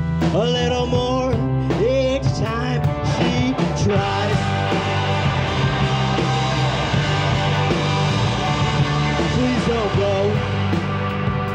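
Indie rock band playing live, with two electric guitars, an electric bass and a drum kit. A male lead vocal sings over it for the first few seconds and comes back near the end.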